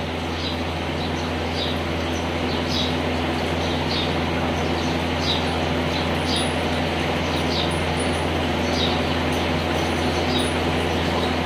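A steady low mechanical hum with a constant rushing noise underneath. Short high chirps repeat about every two-thirds of a second over it.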